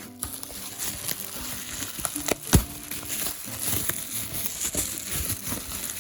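Crinkling and rustling of packaging being handled, with scattered clicks and one sharp knock about halfway through. A faint tune runs underneath.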